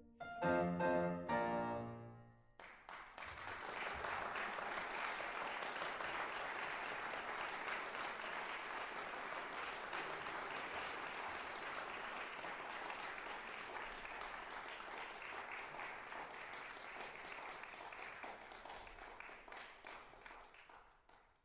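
Piano music closing on a final chord, then audience applause that carries on steadily and fades out near the end.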